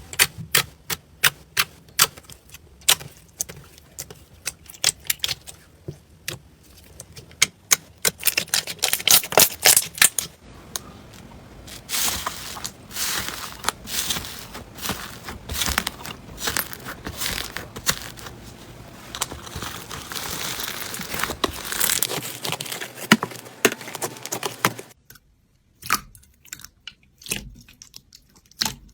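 Slime being pressed, stretched and poked by hand, giving rapid crackling and popping clicks as trapped air bursts. About two-thirds of the way through, the clicking turns sparser and quieter.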